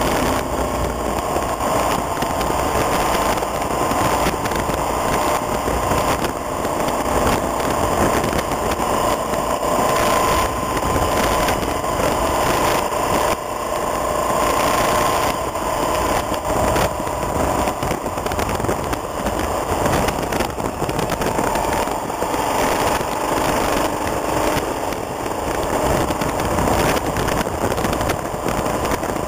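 Motorcycle engine running steadily under way, heard from on board over a steady rush of wind and tyre noise on a gravel road. Many small knocks and rattles come through the whole time.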